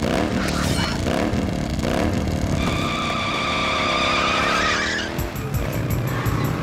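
Cartoon sound effects of wheels spinning and skidding through dirt, with a held squeal in the middle, over action music. Near the end the squeal gives way to a fast pulsing rumble.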